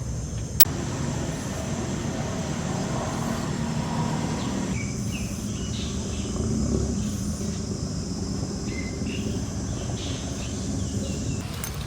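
Outdoor ambience: a steady high insect drone over a low rumble of road traffic. The insect drone cuts off near the end, and there is one sharp click about half a second in.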